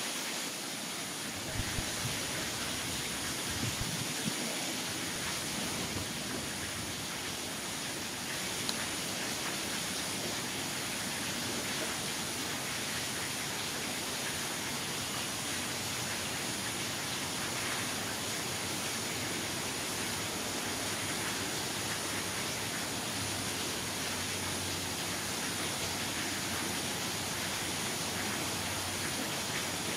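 Steady, even hiss of background noise with no distinct event. A faint high-pitched tone pulses over it about once a second.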